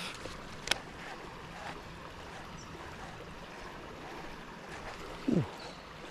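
Steady rush of fast-flowing river water running below a weir, with a sharp click about a second in and a short sound falling in pitch near the end.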